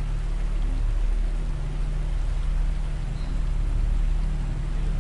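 Background soundscape of a subliminal affirmation recording: a steady hiss over a deep, steady low drone, even in level throughout.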